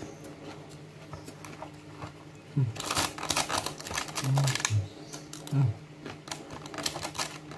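Close-up eating sounds of a man eating nasi kuning: quiet at first, then from about three seconds in a run of crackly clicks from chewing, lip smacking and handling the food in its cardboard box, with a few short low hums.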